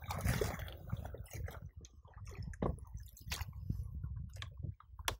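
Wooden paddle stroking through lake water beside a bamboo raft: irregular small splashes, drips and clicks, with one sharper click near the end.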